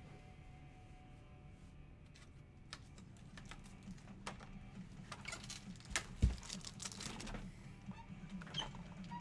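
Faint light clicks and taps of small items being handled on a tabletop, growing busier after a few seconds, with one louder knock about six seconds in.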